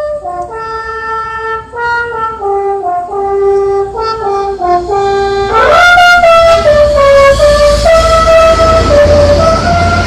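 Telolet bus horn, a set of multi-tone air trumpet horns, playing a quick tune of stepped notes. About six seconds in a note slides upward and a low rumble grows under the held notes that follow.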